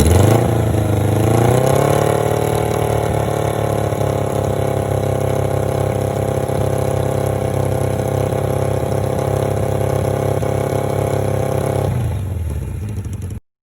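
1980 Kawasaki KZ650 inline-four engine running at a steady idle, after its pitch dips and rises about a second in. Near the end the engine note drops away.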